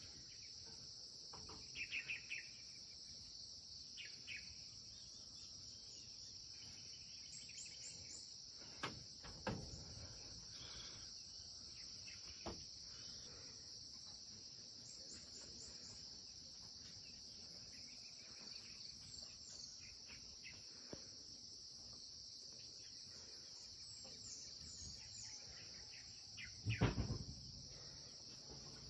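A steady, high-pitched chorus of insects, with scattered bird chirps over it. There are a few low thumps, around nine seconds in and again, loudest, near the end.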